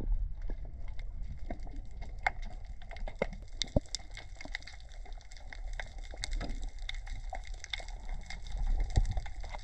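Underwater sound on a diving camera: scattered sharp clicks and crackles over a low rumble, with a louder click about 4 seconds in and another about 9 seconds in.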